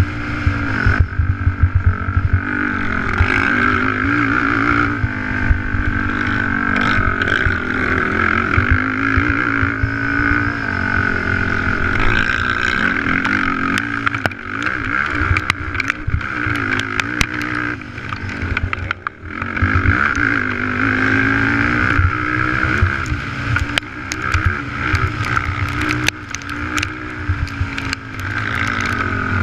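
Race quad's engine heard from a camera mounted on the machine, at race pace, its pitch rising and falling as the throttle and gears are worked, with many sharp clicks and knocks in the second half. The engine note drops away briefly about two-thirds of the way through, then comes back.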